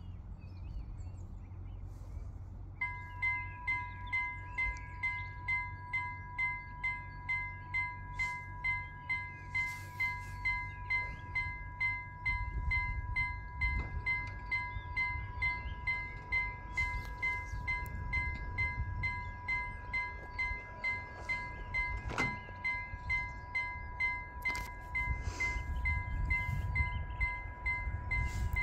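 Railway level crossing warning bell ringing in quick, even strokes, a little under two a second, starting about three seconds in: the crossing's alarm that a train is approaching.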